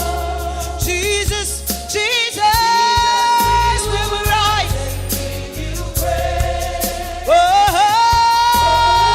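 Live gospel worship music: a lead singer holding and bending long notes over a band with sustained bass and regular drum hits.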